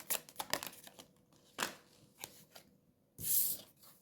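Tarot cards being shuffled and handled: a quick run of flicks in the first second, a single snap about a second and a half in, and a louder brief swish of cards sliding a little after three seconds.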